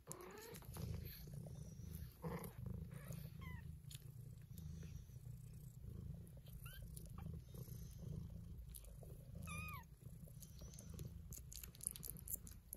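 Cat purring steadily, a low continuous rumble, with a few short, high mews from a young kitten.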